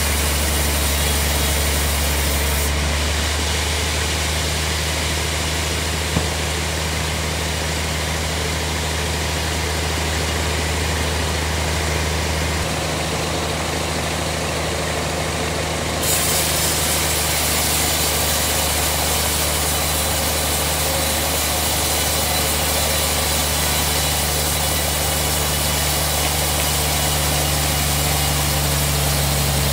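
Sawmill band saw running steadily, its blade sawing through a log on the carriage: a constant low motor hum under a wide hiss, with a single small click about six seconds in.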